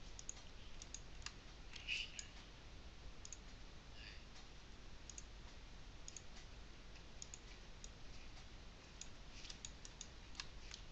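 Faint, scattered computer mouse clicks, single ones spread out and a quick cluster of several near the end, over a steady low hum.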